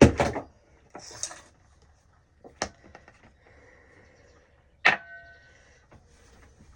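Skincare containers being handled on a counter: a knock at the start, then two sharp clicks, about two and a half and five seconds in, the second with a short ring.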